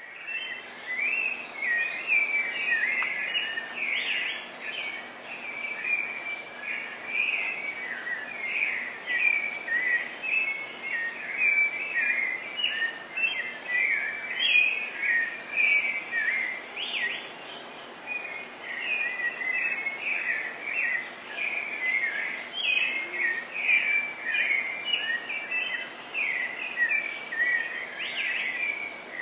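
Dense, unbroken chorus of many birds chirping and whistling, with a faint steady high-pitched buzz behind it.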